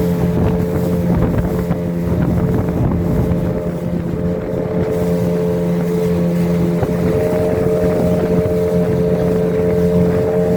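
Motorboat engine running at a steady pitch under way, with the rush of water and wind noise on the microphone.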